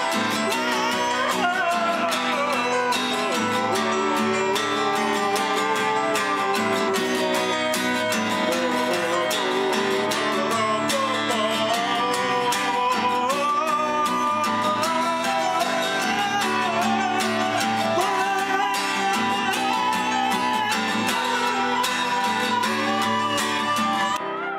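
Acoustic guitar played with a man's voice singing along, a song running without a break until it drops off just before the end.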